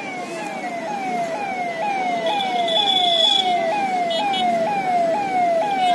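A siren wailing in a fast repeating cycle, each sweep jumping up and sliding back down in pitch about twice a second, growing louder over the first few seconds.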